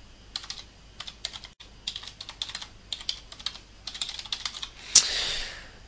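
Typing on a computer keyboard: a run of quick key clicks in short bursts, then one louder, sharper click near the end followed by a brief hiss.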